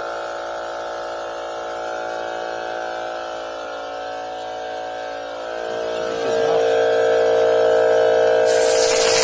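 DeWalt FLEXVOLT 60V cordless 2.5-gallon air compressor running steadily with an even motor hum as it pumps up its tank, getting louder about six seconds in. Near the end, a short hiss of air as the air hose's quick-connect coupler is pushed onto the compressor's outlet.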